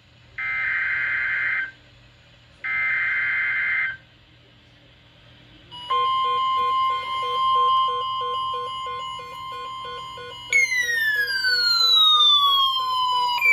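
NOAA Weather Radio emergency alert tones: two harsh, buzzing bursts of SAME header data, each just over a second long, then from about six seconds in the steady 1050 Hz warning alarm tone that announces a severe thunderstorm warning. Faint pulsing beeps sit under the alarm tone, and from about ten and a half seconds a falling, siren-like tone sweeps down over it.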